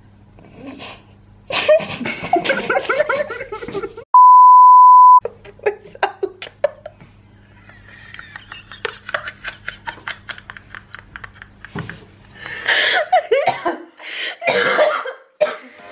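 A loud, steady, pure-tone censor bleep lasting about a second, about four seconds in, blanking out a spoken word. Around it, people laugh and cough, with light clicks in between and a steady low hum underneath that stops about twelve seconds in.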